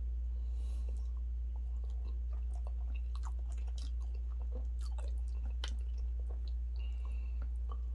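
Close-miked mouth sounds of a person chewing and eating fufu with turkey stew: many small, irregular wet clicks and smacks over a steady low hum.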